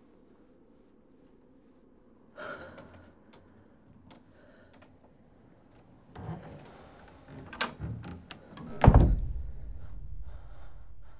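A wooden door being handled: soft rubbing noises, a sharp click about seven and a half seconds in, then a heavy low thud near nine seconds followed by a low rumble.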